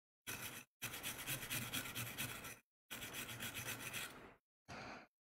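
Quiet scrubbing rubs on a laptop motherboard as its standby-power section is cleaned, in four stretches of rapid strokes with sharp silent gaps between.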